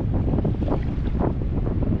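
Wind buffeting the microphone in a steady low rumble, with choppy water lapping against the kayak.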